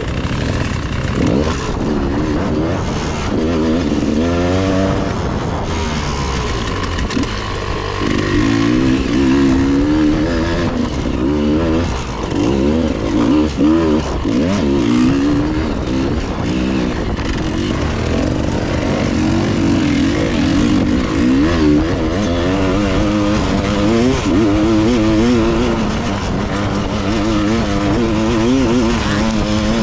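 Dirt bike engine running under load on a forest trail, its pitch rising and falling over and over as the throttle is opened and closed.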